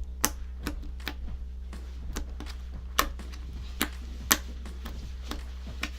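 Slime being squished and poked, making irregular sharp pops and clicks, the loudest about three seconds in and twice more soon after, over a steady low hum.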